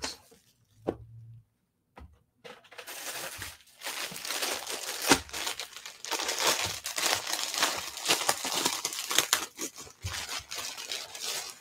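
Clear plastic poly bag crinkling and crackling as hands handle it with a pair of leggings inside, starting about two and a half seconds in.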